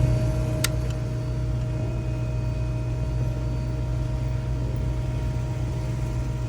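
A car engine idling with a steady hum, and one sharp click about half a second in.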